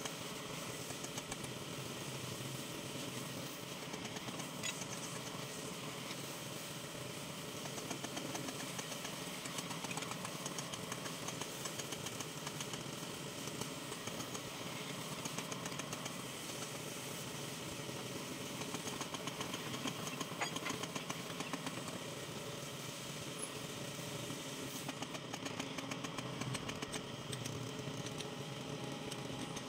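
Drill press running steadily, its twist bit cutting through a thick steel plate and throwing off curled chips.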